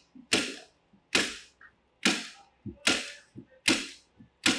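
Hand staple gun firing staples through a membrane into a timber stud, six sharp shots about one every 0.8 seconds, with lighter clicks between them.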